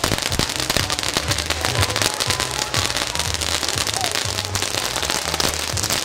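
Pyrotechnic spark fountains hissing and crackling continuously, a dense spray of tiny pops, over a low bass line of music.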